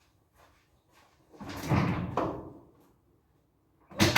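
Two knocking clunks, as of objects being handled and set down. The first, about a second and a half in, lasts close to a second; the second, sharper one comes near the end.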